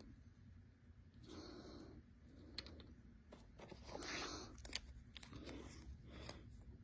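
Faint rustling and handling of packaging and paper inserts, with a few soft swells and small scattered clicks.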